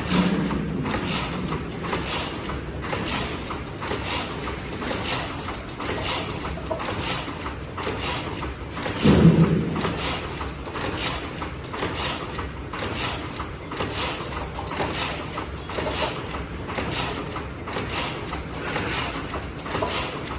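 Hexagonal wire mesh machine running, with a steady rhythmic mechanical clacking and one heavier low thump about halfway through.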